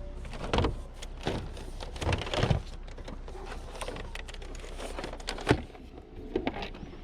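A handful of uneven knocks and scrapes as a television and its stand base are handled and moved.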